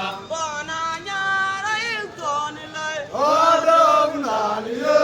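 Voices singing a chant-like song, with a long held note about three seconds in.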